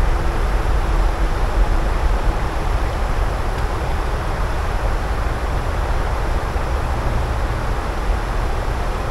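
Steady outdoor roar: wind rumbling on the microphone over a wash of distant road traffic.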